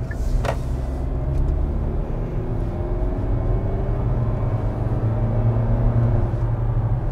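Cabin sound of a 2016 Kia Optima GT's 2.0-litre turbocharged four-cylinder engine pulling in sport mode, which holds it at slightly higher revs: a faint engine note rising steadily in pitch over several seconds above a steady low road rumble.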